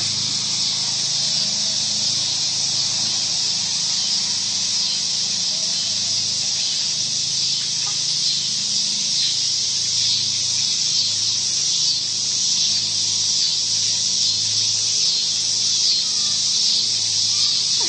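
A steady, high-pitched hiss runs throughout, with a low hum beneath it that swells and fades.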